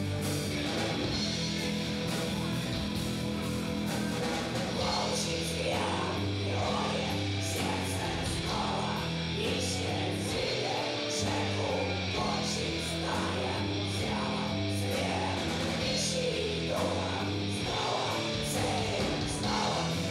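Doom metal band playing live: a slow, heavy riff on distorted electric guitars and bass with drums, the low notes held long.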